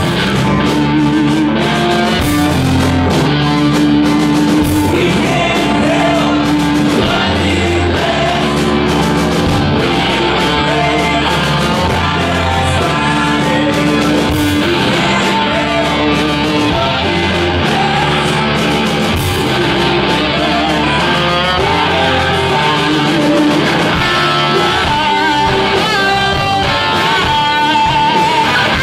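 A heavy rock band playing live with distorted electric guitars, bass and drums, and a vocalist singing over them. It is loud and dense throughout, and a melodic guitar line stands out in the last few seconds. Recorded from the crowd.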